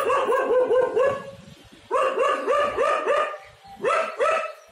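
A dog barking in quick runs of short, high yaps, about five a second: a long run, a second run after a brief pause, and two or three yaps near the end.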